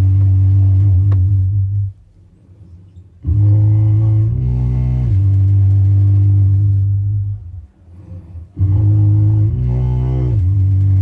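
Deep, loud droning notes held for several seconds each, with short pauses between them; partway through each note the overtones shift up and back down, giving a changing, vowel-like colour to the drone.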